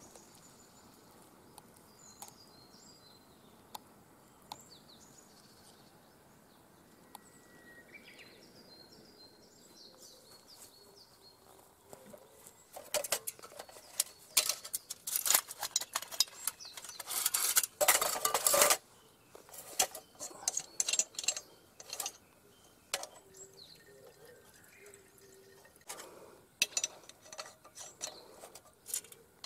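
Faint bird chirps at first, then from about twelve seconds in, repeated metal clinks, clatters and scrapes of a small brass camp stove and its metal windscreen being handled and fitted together on a perforated aluminium table. The loudest is a scraping clatter lasting about a second, a little past halfway.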